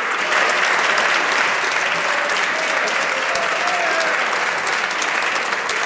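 A chamber full of legislators applauding, with clapping and voices calling out over it.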